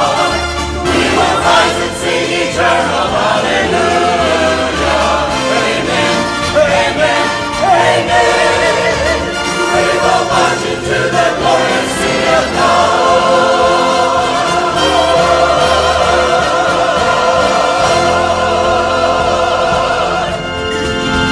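Many voices singing a hymn together with musical accompaniment, the sung notes wavering with vibrato over held lower notes.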